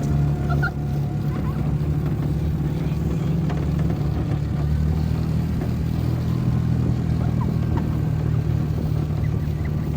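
An engine running steadily at a constant pitch, with no clear revving.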